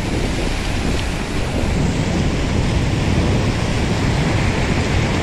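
Sea surf breaking and washing over shore rocks in a steady rushing noise, with wind buffeting the microphone as a deep rumble.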